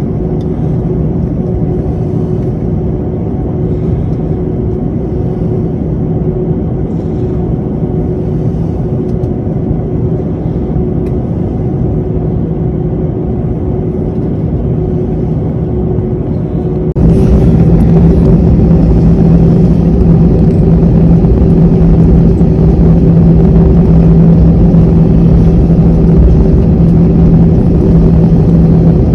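Airbus A321 airliner's jet engines running with a steady low hum and a held tone. About seventeen seconds in, the sound suddenly gets louder and fuller and then holds steady.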